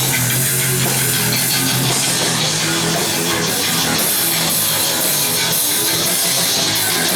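Rock music played loud and without a break: guitar with a drum kit.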